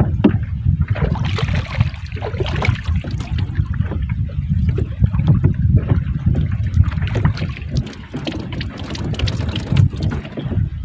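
Small fishing boat at sea: wind buffeting the microphone in an uneven rumble, with water splashing and sloshing in irregular bursts.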